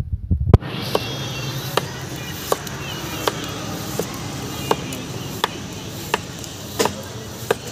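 A large knife slicing the rind off a watermelon and striking the wooden board, in sharp, evenly paced cuts about one every three-quarters of a second, over a steady hiss.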